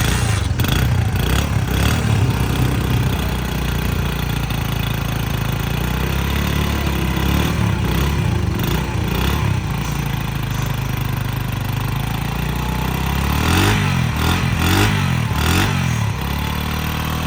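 Honda CD70's single-cylinder four-stroke engine running steadily, with a few short revs near the end.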